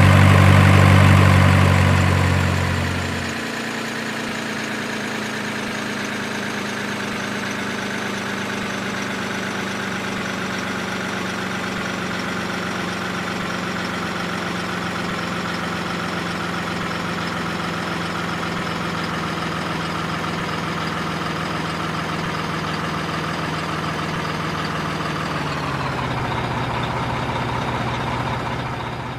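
Truck engine idling steadily, louder for the first three seconds or so and then settling to an even level. Its pitch steps down slightly near the end.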